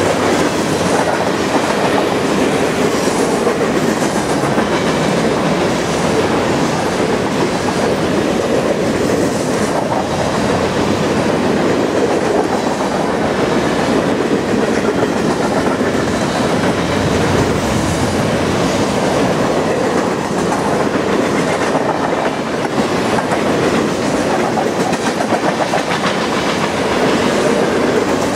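Covered grain hopper cars of a long freight train rolling past: a steady rumble of steel wheels on rail, with repeated clicks as the wheels pass over rail joints.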